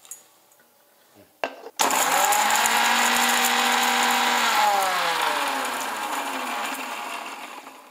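Indian mixer grinder (mixie) grinding dry-roasted whole spices coarsely in a small steel jar. It gives a short blip, then runs at full speed for about three seconds. After it is switched off, its whine falls in pitch and fades as the motor spins down.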